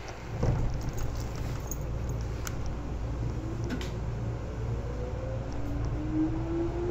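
Seibu 2000-series electric commuter train heard from inside the car, with a steady low rumble and hum. About three seconds in, the traction motors start a whine that rises in pitch as the train gathers speed.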